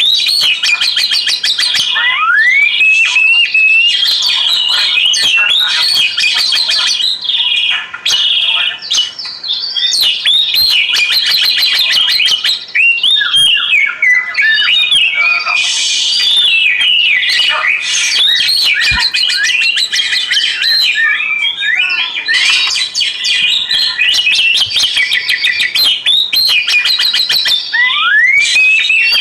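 An Oriental magpie-robin (kacer) singing a continuous, loud, varied song of rising whistles, fast rattling trills and chattering phrases.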